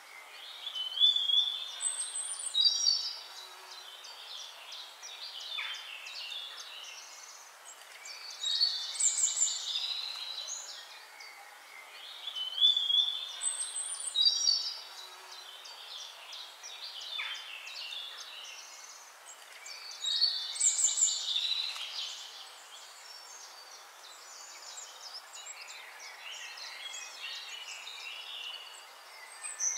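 Songbirds chirping and singing in short bursts of high calls. The same sequence of calls comes round about every eleven and a half seconds, like a looped nature recording.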